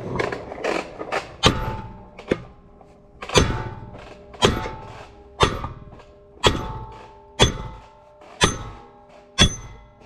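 Hammer striking a steel punch, driving it through an old disc harrow's gang. Steady blows about once a second, a few lighter taps and then eight hard ones, each ringing like struck metal.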